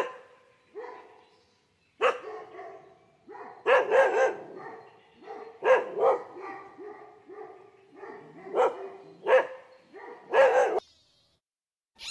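Dog barking repeatedly, about ten barks, several of them in quick pairs.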